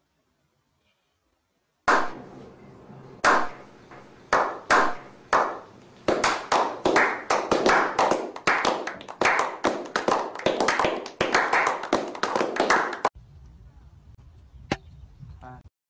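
A small group of people doing a slow clap: single claps spaced more than a second apart speed up into quick, continuous clapping, which stops suddenly about thirteen seconds in.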